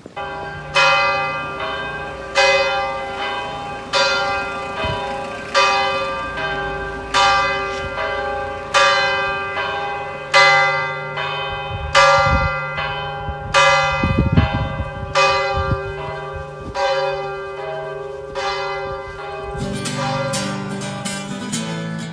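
A single church bell tolling in a village bell tower. It is struck about a dozen times, roughly once every one and a half seconds, and each stroke rings on and fades into the next.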